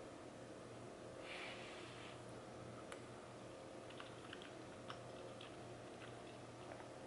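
A person quietly chewing a mouthful of seafood gumbo with rice, making small scattered mouth clicks, with a soft hiss lasting about a second starting about a second in.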